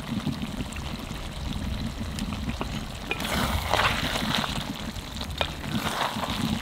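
Thick, nearly dry chicken curry sizzling in a pot as garam masala is stirred in with a flat metal spatula. The stirring and scraping get louder from about three seconds in, with a few clicks of the spatula against the pot, over a steady low rumble.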